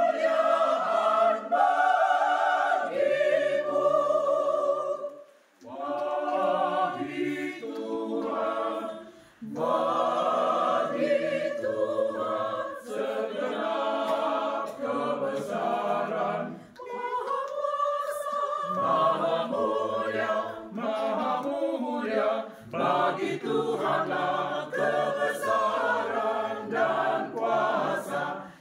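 Small amateur choir singing a hymn in Indonesian without accompaniment, in several voices, with brief breaks between phrases.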